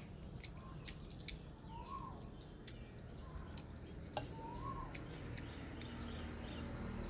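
A bird repeats a short rising-and-falling call about every two to three seconds, with fainter short calls in between. Scattered light clicks and taps of eating with a spoon come over it.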